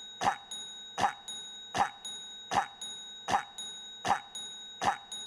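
A cough sound effect looped mechanically, one short sharp cough about every three-quarters of a second at an unchanging rate, with a steady high-pitched whine beneath.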